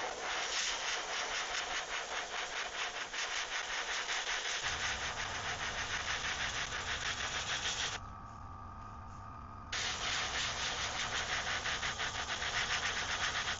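Airbrush spraying paint in a steady hiss, which stops for about two seconds past the middle and then starts again; a low hum comes in about a third of the way through and carries on.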